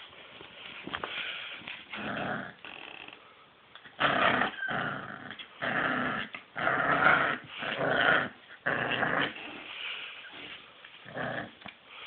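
Pit bull puppy growling in a string of short bursts as it tugs at a blanket, loudest through the middle stretch.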